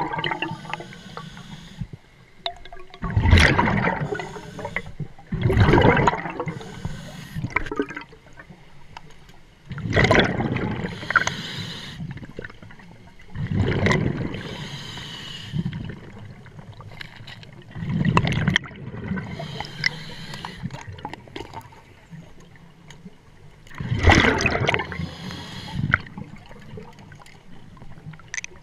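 Scuba diver's breathing through a regulator underwater: exhaled air bubbling out of the regulator in loud gurgling bursts about every four to six seconds, six times, with quieter stretches between breaths.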